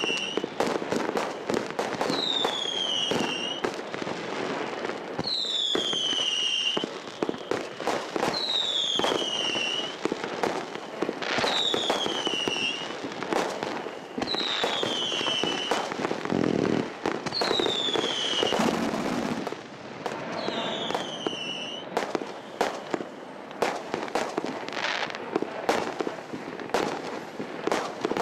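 131-shot firework cake firing: a rapid run of sharp cracks and bangs from the shots and bursting stars. A high falling whistle recurs about every two seconds through the first two-thirds.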